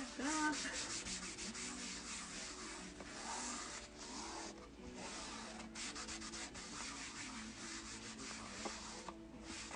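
A cloth rubbing in repeated short strokes over the chalkboard surface of a Greyson board, wiping off water-softened chalk paste, with a few brief pauses.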